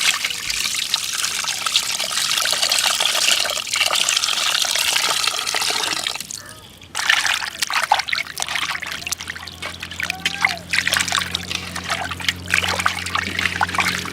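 Water pouring and splashing, with a short break about six seconds in; a steady low hum joins from about eight seconds in.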